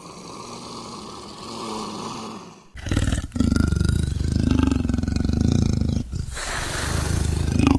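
Velociraptor creature sound effects: a quieter, breathy snorting hiss, then after a sudden break a loud, rough growling roar that stops briefly and starts up again.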